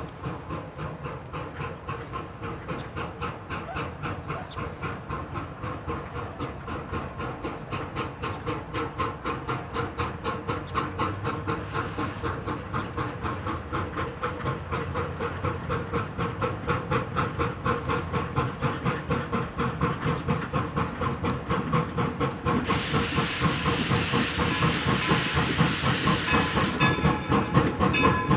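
Replica 1860s 4-4-0 steam locomotive No. 17 'York' working toward the listener: a steady quick beat of exhaust chuffs that grows louder as it nears. Near the end a loud steam hiss lasting about four seconds comes in over the chuffing.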